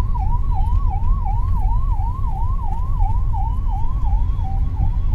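Electronic siren warbling up and down in pitch about three times a second, heard over the low rumble of a car on the move.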